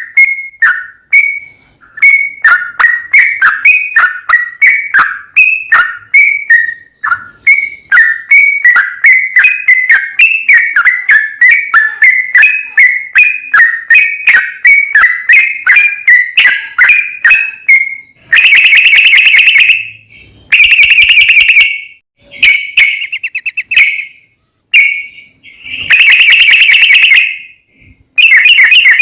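Yellow-vented bulbul (trucukan) singing: a long run of short whistled notes, two to three a second, then from about two-thirds of the way in, several long, very rapid trill bursts with short breaks between them.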